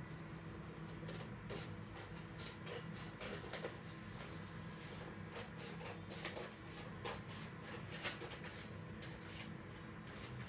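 White A4 paper being handled and worked by hand: scattered crisp rustles and small clicks, over a steady low hum.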